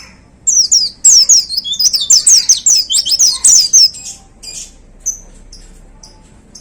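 White-eye (pleci) singing a fast, loud burst of high, down-slurred notes for about three and a half seconds, then breaking off into a few short, separate chirps.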